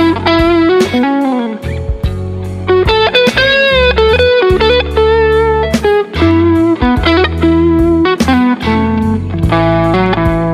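Fender Custom Shop Master Grade 1961 Stratocaster electric guitar playing a single-note lead line, with string bends and vibrato on held notes, over a backing track with a steady drum beat.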